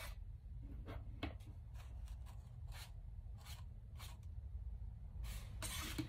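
Faint, short scratchy strokes of a small paintbrush on a paper plate, one after another with gaps between them, ending in a longer papery rustle.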